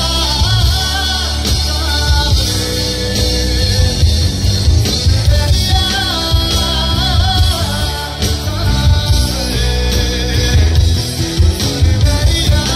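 Live rock band music played loud through a stage PA: electric guitars over a drum kit, with a sung or lead melody line.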